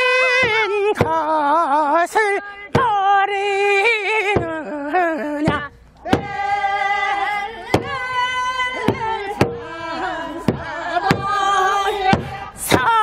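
Men singing a Korean farming song (nongyo) together, with a buk barrel drum struck on the beat about once or twice a second. The singing breaks off briefly a little before the middle, then a new phrase starts.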